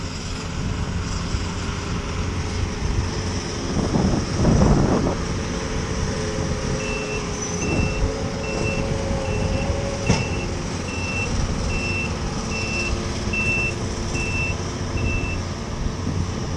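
A vehicle's reversing alarm beeping steadily, about one high beep a second, for roughly eight seconds, over a continuous low engine rumble with wind or rain noise that swells briefly about four seconds in.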